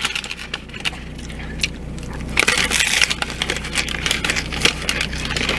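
Close-miked chewing of a crunchy Doritos Locos taco shell: many quick, irregular crunches and crackles, thickest about halfway through.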